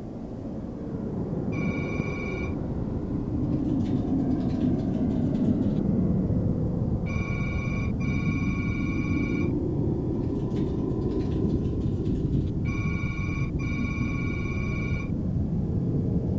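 Low rumbling drone that swells over the first few seconds, with electronic beeps over it: a single beep lasting about a second early on, then pairs of beeps about seven and thirteen seconds in.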